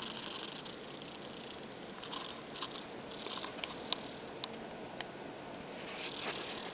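Faint handling noise: soft rustling with a few small clicks, as the camera moves close over a greasy cardboard food box.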